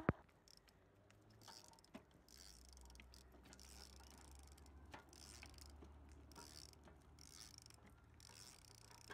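Faint scattered clicks and ticks over a low rumble from a child's tricycle rolling across asphalt.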